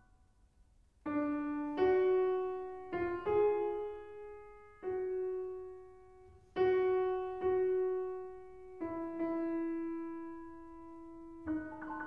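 Solo piano playing a slow, sparse line of single notes, each struck and left to ring and fade, entering after about a second's pause.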